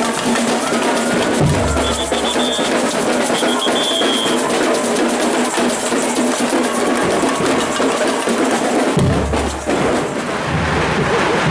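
Drums of a procession band playing in the street over loud crowd noise, with two deep booming thuds, one about a second and a half in and one near the end.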